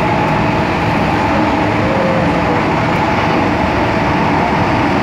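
MTR M-Train electric multiple unit underway, heard from inside the passenger car: a steady rumble of wheels and running gear with faint steady whining tones.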